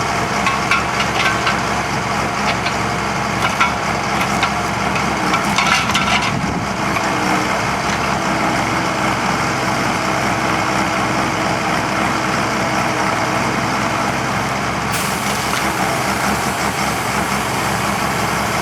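A heavy engine running steadily, with wood crackling and snapping over it for about the first six seconds.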